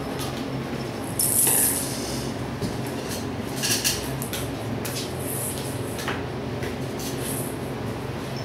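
Ferrets scrabbling and wrestling in a plastic bowl: claws scraping and the bowl and toys knocking in short scratchy bursts, the loudest about a second in and another near four seconds, over a steady low hum.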